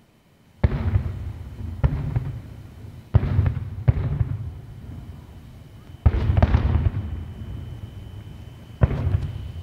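Aerial fireworks bursting: a series of about six sharp bangs, each trailing off in a rumbling echo.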